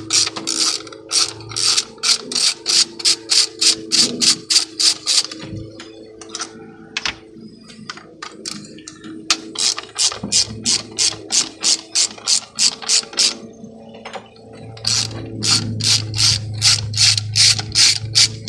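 Hand ratchet with a 10 mm socket on an extension clicking in quick runs, about four clicks a second, with two short pauses, as the coil pack bolts are backed out.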